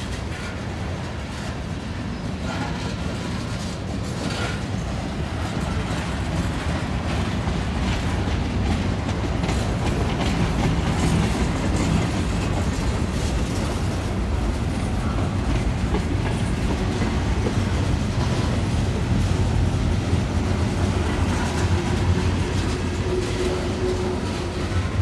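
Freight train tank cars and covered hopper cars rolling past close by, their steel wheels rumbling steadily on the rails. A faint steady whine rises near the end.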